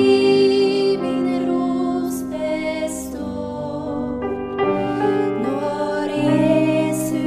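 A slow, gentle song: a voice singing over sustained instrumental accompaniment, with long held bass notes.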